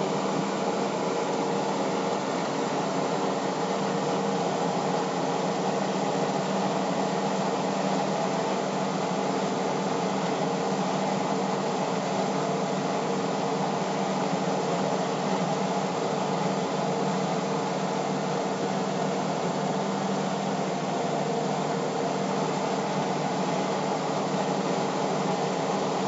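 Combine harvester running steadily while it cuts rice, heard from inside the cab: a constant machine drone with several steady hum tones.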